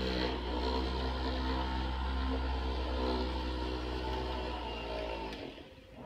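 Jeanie Rub electric massager running steadily with a low hum while pressed against the back muscles, switching off about five seconds in.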